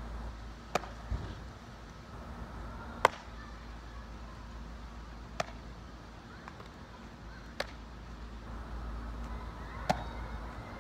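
Baseball smacking into leather gloves as two players throw it back and forth, five sharp pops about every two and a quarter seconds, the one about three seconds in the loudest.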